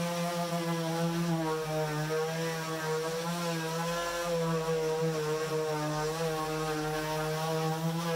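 Electric random orbital sander running on a wooden furniture frame: a steady motor hum whose pitch wavers slightly as the sander is pressed and moved over the wood.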